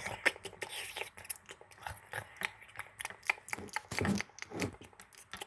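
Plastic Lego pieces and minifigures being handled: a string of small irregular clicks and taps, with a few heavier knocks about four seconds in.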